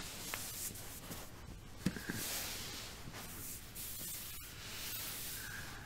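Soft rustling and a couple of faint bumps as a person shifts her body and clothing on a yoga mat, lowering herself from sitting to lying on her belly.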